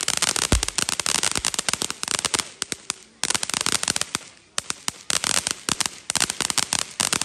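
Firecrackers going off in fast strings of sharp pops, with short lulls about three seconds in and again a little after four and a half seconds, and one low thump about half a second in.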